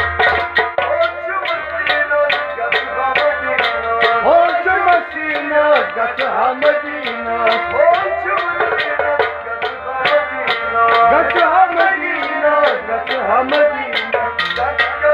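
Live song on harmonium and dholak: held harmonium chords over a steady hand-drum rhythm, with a man singing through the middle of the passage.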